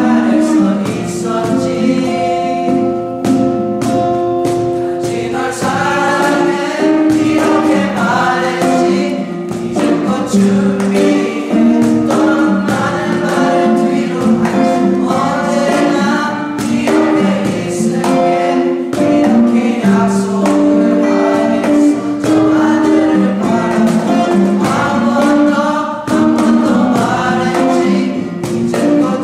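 Choir singing a song in several voice parts, with held notes over instrumental accompaniment.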